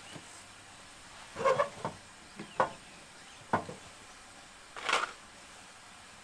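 A few short knocks, clatters and rustles of cooking gear and food being handled on a camp table, about five separate sounds a second or so apart.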